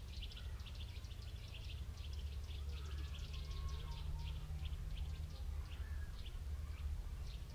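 Small birds chirping: a rapid, irregular stream of short high chirps, over a low steady rumble.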